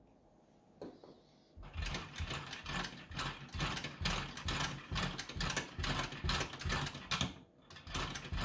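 Wilesco D16el model steam engine turned over by hand at the flywheel: one click, then from about a second and a half in a fast, continuous run of rattling mechanical clicks from the crank and cylinder. The engine is freshly oiled and cold, not under steam.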